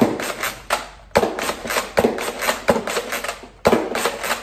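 Nerf Fortnite Heavy SR, a spring-powered bolt-action dart blaster, being worked and fired over and over: a quick run of sharp plastic clacks and pops, clustered roughly once a second.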